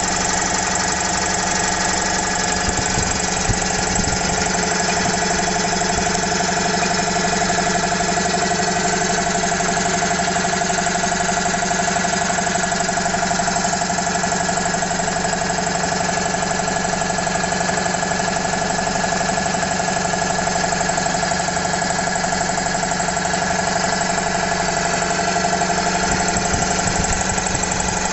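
Vintage twin-cylinder Motivair air compressor, a Frigidaire refrigeration compressor driven by a 1/4 hp single-phase electric motor, running steadily with a fast even pulsing beat as it pumps the tank up toward its cut-out pressure.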